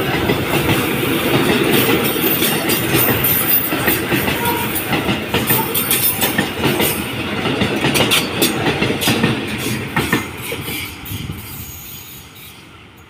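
Freight train's container wagons rolling past close by, the wheels clacking over the rail joints in a rapid, irregular clatter. The sound fades away over the last few seconds as the end of the train passes and draws off.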